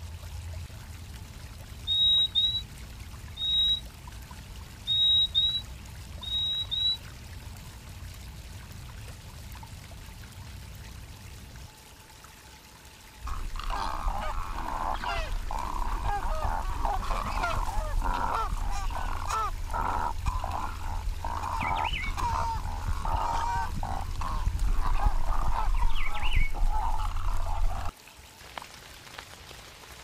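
Purple-throated euphonia giving short, high paired call notes, six times in the first seven seconds. About thirteen seconds in, a loud, dense chorus of many overlapping bird calls starts with a low rumble beneath it, and it stops abruptly near the end.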